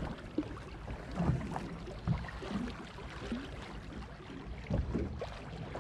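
Water lapping and sloshing against the hull of a small fishing boat, with short irregular slaps and knocks.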